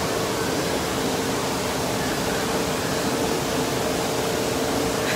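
Steady, even roar of an indoor water park hall, running water and air handling blended together, with a faint steady hum underneath.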